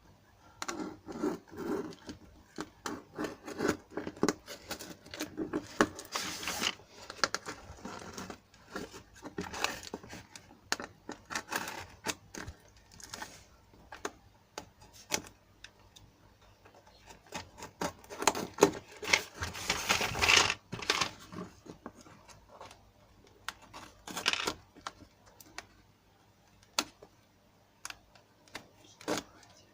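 A cardboard parcel box being cut and pulled open by hand: irregular clicks, scrapes and rustles, with a few longer tearing rasps, the longest about two-thirds of the way through.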